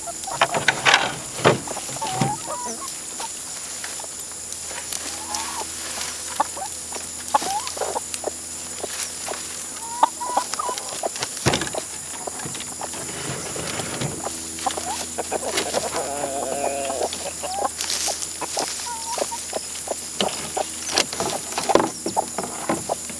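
Chickens clucking and giving short calls, with a longer drawn-out call about two-thirds of the way through, over scattered knocks and rustles.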